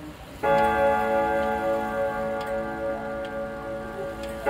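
Grandfather clock's freshly adjusted hour-strike hammer hitting its chime rod about half a second in, the rod ringing on with several steady tones that fade slowly; the next hour stroke lands right at the end. The movement ticks steadily underneath.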